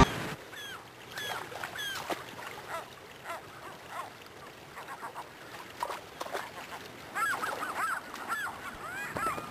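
Gulls calling over the steady rush of a shallow river: short, arching cries, scattered at first, then coming thick and overlapping from about seven seconds in.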